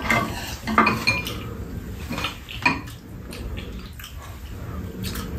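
Spoon and chopsticks clinking against bowls and a pan during a meal, with several short clinks in the first three seconds, then quieter.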